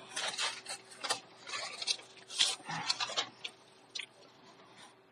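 A pen scratching across paper in short, irregular strokes as words are handwritten; it stops about four seconds in.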